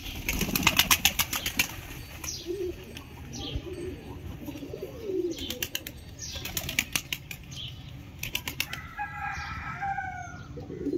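Pigeons' wings flapping in three quick bursts of rapid claps, at the start, about halfway and again near the end, with low pigeon cooing in between.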